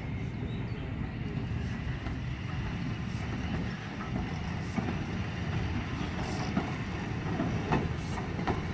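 BR Standard Class 4MT 2-6-0 steam locomotive 76079 moving slowly tender-first as a light engine, a steady low rumble with a few sharp clanks near the end as its wheels cross pointwork.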